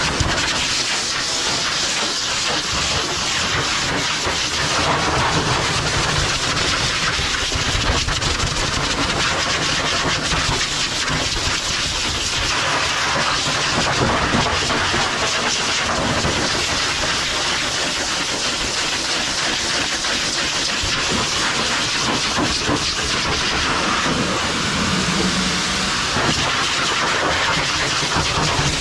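High-velocity pet dryer blowing a strong, steady stream of air through its hose nozzle, a loud rushing hiss whose tone shifts a little as the nozzle moves over the dog's coat. The dryer is blowing loosened undercoat out of a freshly bathed Sheltie's wet double coat.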